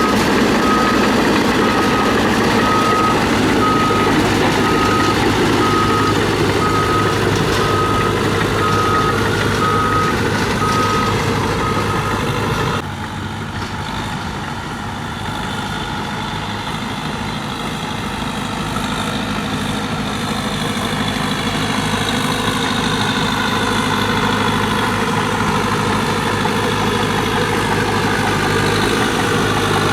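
Heavy construction machine's diesel engine running, with a reversing alarm beeping steadily at one pitch. About thirteen seconds in, the beeping stops abruptly and the engine runs on a little quieter.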